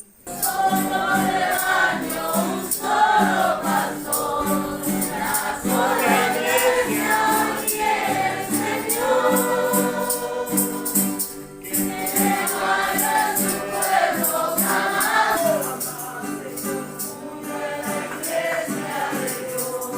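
A group of voices singing a gospel hymn over a steady shaken percussion beat, such as a tambourine. The music starts suddenly just after the start and breaks off briefly about halfway through.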